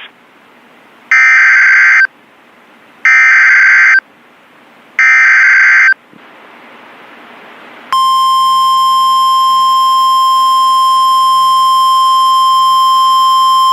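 Emergency Alert System SAME header: three loud one-second bursts of screeching digital data tones about two seconds apart, with faint radio hiss between. About two seconds after the last burst, the steady NOAA Weather Radio 1050 Hz warning alarm tone starts and holds, introducing a flood warning.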